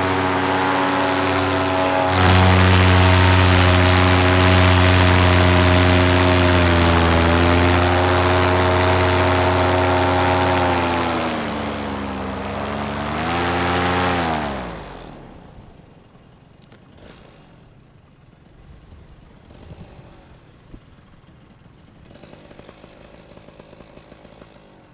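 Paramotor engine and propeller running steadily, stepping up in revs about two seconds in. Near the end the revs drop, rise briefly, then wind down to a stop about fifteen seconds in as the engine is shut off, leaving only faint rustling and small knocks.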